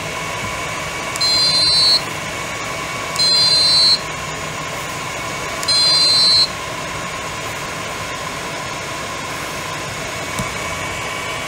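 A handheld 30 W laser's built-in buzzer beeping three times as it fires, each beep a high, steady tone about three-quarters of a second long, a second or two apart. A steady whirring hum runs underneath.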